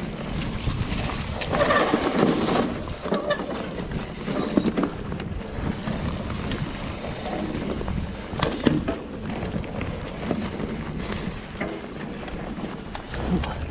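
Mountain bike rolling over dry fallen leaves and dirt singletrack: steady crunching tyre noise with frequent sharp clicks and rattles from the bike, and wind rushing on the microphone. The crunching gets louder for about a second near two seconds in.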